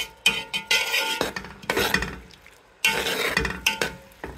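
A metal spoon stirring prawns and vegetables in sauce in a cooking pot, scraping and clinking against the pot. It goes in two spells of stirring with a short pause between them.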